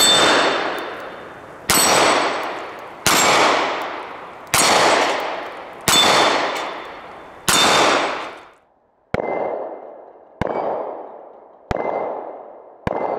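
Kimber K6s revolver firing six shots about a second and a half apart, each a sharp crack with a long echoing tail and the ring of a struck steel plate. After a short pause a second string of four quieter shots follows, each with a higher, shorter steel ring.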